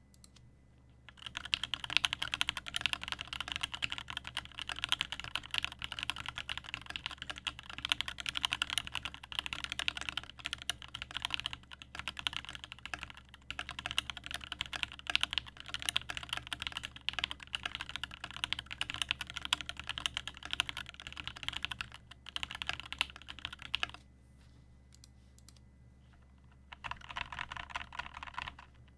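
Continuous typing on a Duck Orion 2.5 custom mechanical keyboard: aluminium plate, lubed and filmed Original Aspirations switches, GMK keycaps and no case foam, miked from right above the board. The typing starts about a second in, pauses for about three seconds near the end, then resumes.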